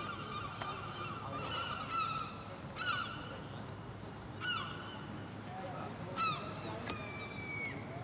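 A flock of seagulls calling, many at once, with five or so louder single calls standing out over the chorus. A short sharp click comes near the end.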